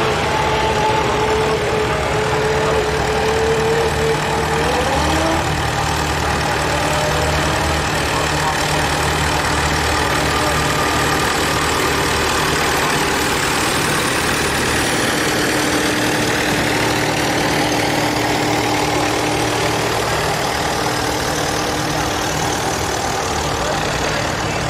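Vintage tractor engines running at low speed as the tractors drive slowly past, several at once, a steady running sound with no break.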